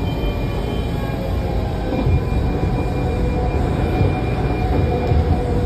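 Washington Metro train running steadily, heard from inside the railcar: a constant low rumble of wheels on rail with a faint steady whine.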